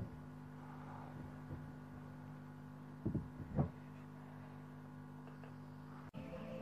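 A sharp click at the start, then two light knocks about three seconds in as small wooden toy-truck parts are handled, over a steady low hum. The hum cuts off near the end.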